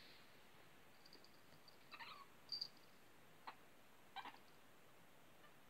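Shih Tzu puppy whimpering: a few faint, short, high-pitched whines and squeaks spaced out over the seconds, at about two, two and a half, three and a half and four seconds in.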